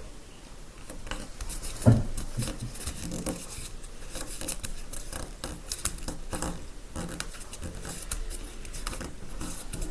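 A sheet of paper being folded and creased by hand: a run of light crinkles, rustles and scrapes, with a sharper knock about two seconds in.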